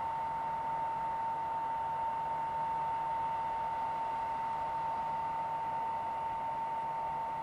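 Steady high-pitched whine from an approaching ČD class 460 electric multiple unit, holding one pitch, over a soft even hiss.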